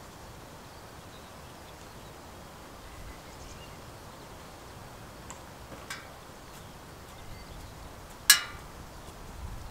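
Quiet outdoor background broken by a few short, sharp clicks, one much louder than the rest about eight seconds in.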